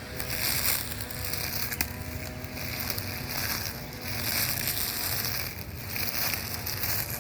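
Brush cutter with a metal blade running and cutting long grass: an engine hum under a loud shredding hiss that swells and eases in repeated sweeps.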